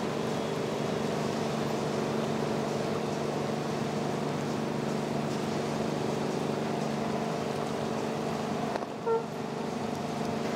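Boat engine running steadily: a constant droning hum with several steady tones. About nine seconds in the drone shifts briefly and a short high beep sounds.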